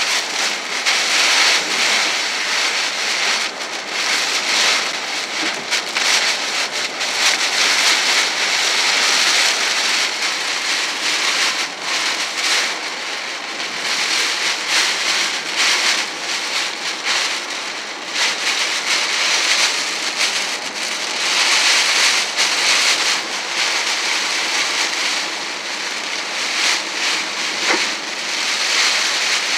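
Heavy wind-driven hurricane rain beating on a car's windshield and roof, heard from inside the cabin, swelling and easing in gusts every few seconds.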